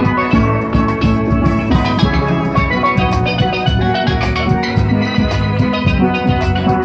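Steel band playing: several steelpans struck with sticks in quick runs of ringing metallic notes, with deeper bass pans and a steady beat underneath.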